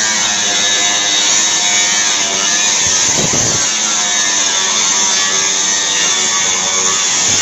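Suzuki APV's G16A engine running with a steady, harsh buzzing exhaust noise, the kind of noise traced to the catalytic converter and muffler. About three seconds in there is a brief change in pitch.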